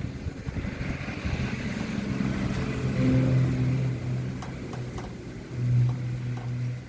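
An engine running with a steady low hum that swells and fades and drops away near the end, over wind rumbling on the microphone.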